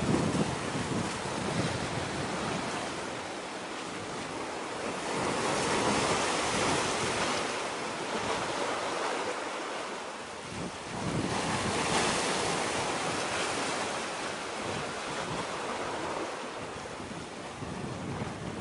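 Wind and water at the shore: a steady rushing noise that swells and fades, louder about five seconds in and again about eleven seconds in, with gusts of wind buffeting the microphone.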